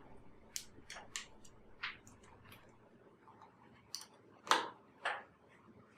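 Irregular light clicks and knocks of small parts and tools being handled during assembly, the two loudest close together near the end.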